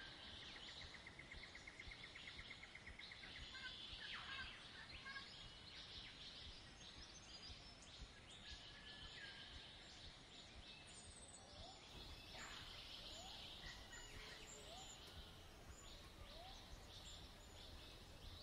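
Faint birdsong over a low hiss: scattered chirps and twitters, a fast trill in the first two seconds, and short rising calls repeated in the second half.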